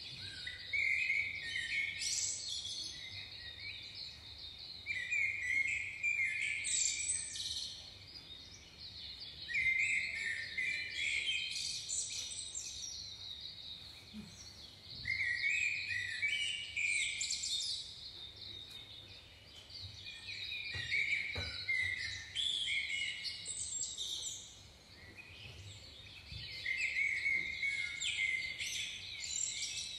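Birds singing: bursts of quick, high chirping phrases every few seconds.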